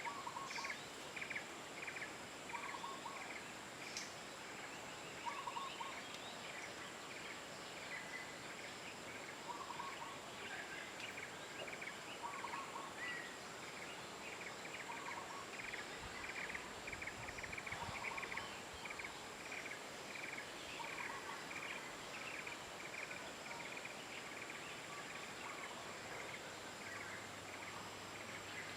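Outdoor ambience with an animal's short rattling calls repeating about every two seconds, among quicker chattering calls and a steady high-pitched hum.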